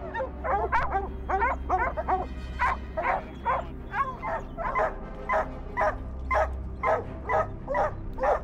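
Hunting hounds barking in a steady, continuous run, about two barks a second.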